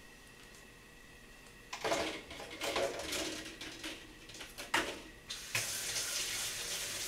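Kitchen tap running into the sink, starting about two seconds in with uneven splashing as water hits something under the stream, then settling into a steady flow near the end.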